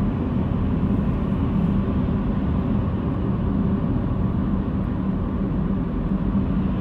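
Steady vehicle rumble with a constant low engine hum, typical of a car on the move.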